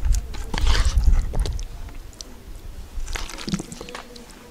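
A metal spoon scooping and squishing through rice and potato-mince stew in an enamel bowl, with a few soft clicks of spoon against the bowl, mostly in the first second and a half and again about three seconds in.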